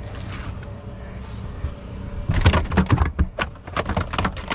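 Large sheepshead flopping on a boat's deck: a quick, irregular run of loud slaps and thumps against the hull, starting about two seconds in.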